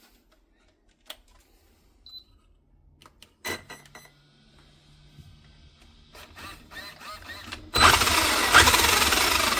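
Electric RC car's motor and drivetrain running at speed, starting suddenly near the end, as a test of a newly soldered EC5 battery connector. A few sharp clicks come before it.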